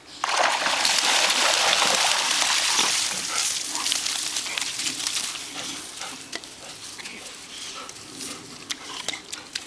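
Splashing water from a dog coming out of a shallow creek and shaking the water from its coat. A loud hiss of water sets in suddenly, then fades over a few seconds into scattered small splashes and clicks.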